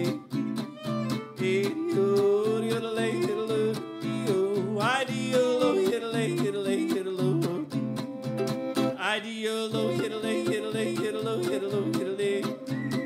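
Live western swing trio playing, a steady chop of rhythm guitar strums under a lead melody that slides quickly upward a couple of times.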